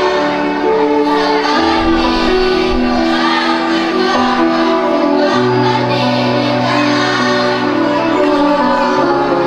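Children's choir singing over an accompaniment of long held chords, with a low bass note coming in about halfway through.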